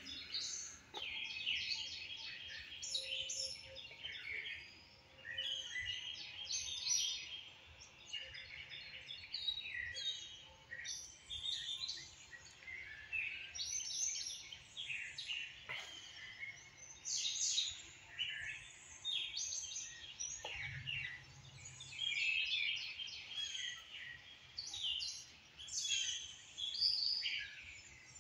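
Many small songbirds singing at once, a continuous chorus of overlapping high chirps and trills.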